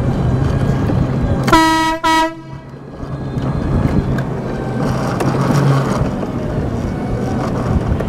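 Big air horn fitted to a mobility scooter blasts twice about a second and a half in: a half-second blast, then a shorter one right after. A steady low hum runs underneath.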